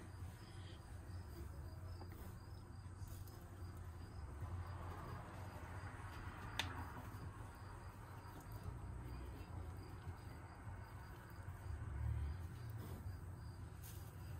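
Faint, steady insect chirping over a low hum, with a single light click about six and a half seconds in.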